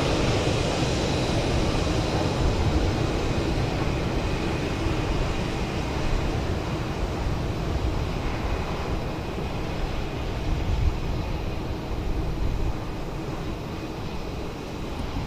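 Boeing 737-800 jet airliner's CFM56-7B turbofan engines running at taxi power as it rolls past, a steady rumble and hiss that slowly fades.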